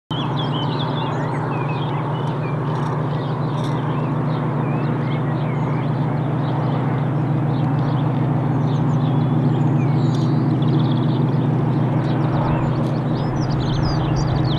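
Class 56 diesel locomotive's engine working hard in the distance, a steady low drone that grows gradually louder as it approaches. Birds chirp over it.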